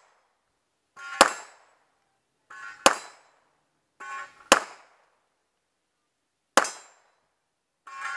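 A firearm firing single, deliberately paced shots in a 3-gun match, four sharp reports about one and a half to two seconds apart, with a fifth fainter one at the very end. Each shot has a brief ringing tail.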